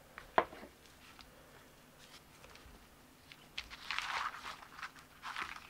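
Cardboard product box being opened by hand: a short click about half a second in, then soft rustling and scraping as the lid is lifted, mostly around four seconds in and again briefly near the end.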